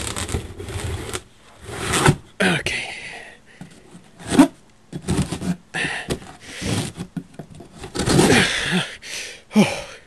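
A stick of RAM scraping and dragging along the packing-taped seam of a cardboard box in short, irregular strokes, trying to slit the tape. The tape is tough to cut.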